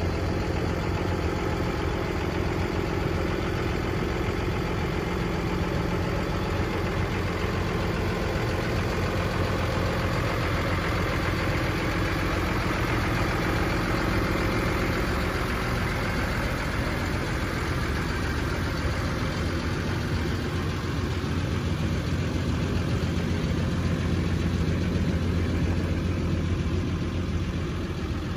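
Cummins ISB 6.7L turbo diesel in a Ford F750 bucket truck idling steadily.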